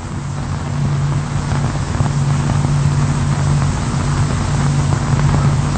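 A steady low mechanical hum with a hiss over it, holding even throughout with no knocks or changes.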